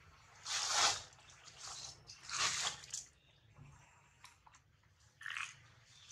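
A macaque biting into and chewing a piece of ripe mango: three short bursts of munching, two in the first half and one near the end.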